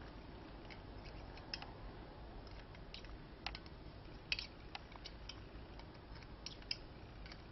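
Faint, irregular light clicks of a loom hook against the plastic pegs of a round knitting loom as loops of yarn are lifted off, over a low steady hum.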